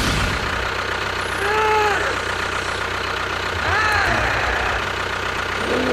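A small motor running with a steady hum. Two short pitched sounds that rise and then fall cut in over it, about a second and a half in and again near four seconds.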